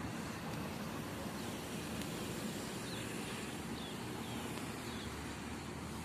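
A few faint, high, short chirps of small birds over a steady background hiss of outdoor noise.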